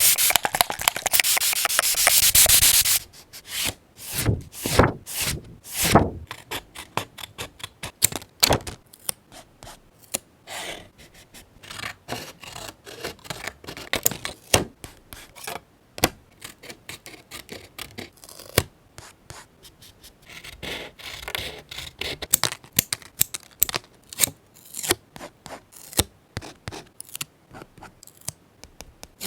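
Paper being handled and rubbed for scrapbook journaling. A loud stretch of continuous rubbing or rustling lasts about the first three seconds. It is followed by a long run of short, irregular scratches, taps and crinkles.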